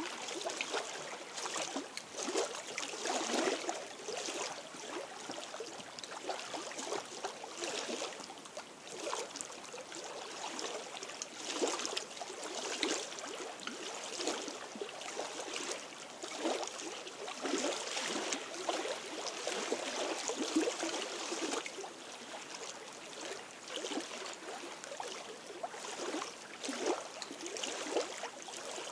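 Small lake waves lapping and splashing against shore rocks, in irregular soft washes every second or so.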